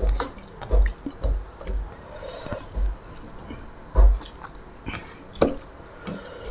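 Rice and curry being squeezed and mixed by hand on a steel plate: soft wet squelching with small clicks and several dull thumps.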